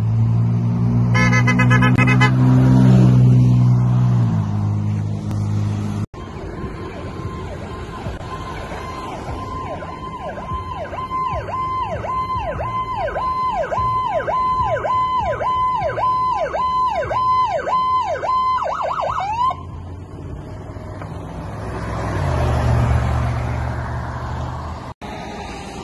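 Emergency vehicles responding: a long, loud blast of a low air horn, then an electronic siren cycling in a fast repeating sweep of about two sweeps a second for around ten seconds, and a second air horn blast near the end.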